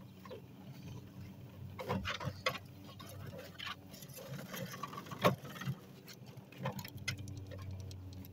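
Hoover Spin Sweeper L1400 manual push sweeper rolling, its rotating brushes pattering and ticking as they flick grass clippings and grit into the hopper. Scattered irregular clicks, with one sharper, louder click about five seconds in.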